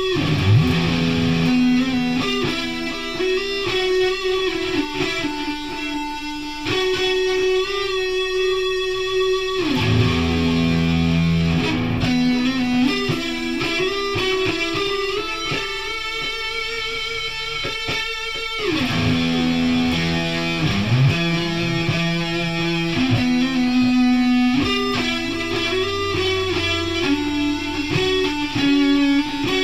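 Instrumental electric guitar music played through effects: held notes that slide from pitch to pitch.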